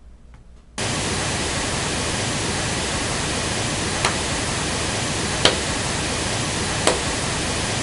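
Pink noise test signal starts suddenly about a second in and runs steadily. Three hand claps cut through it in the second half, about a second and a half apart: short transient disturbances to the measurement.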